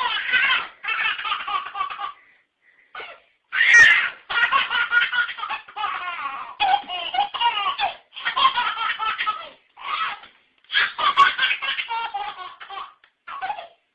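Baby laughing hard in repeated fits of belly laughter, high-pitched runs of a second or two with short catches of breath between, the loudest peal about four seconds in.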